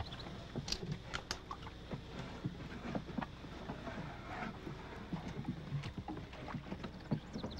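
Scuffling and irregular knocks and clatter as a man is shoved down into a sheet-metal compartment in a wooden boat, over a steady low hum.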